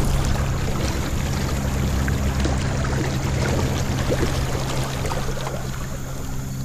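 Minn Kota electric trolling motor running with a steady hum, with water rushing along the small boat's hull.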